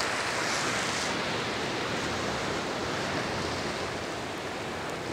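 Steady rush of sea surf breaking on the shore, an even noise with no distinct strokes, easing slightly about four seconds in.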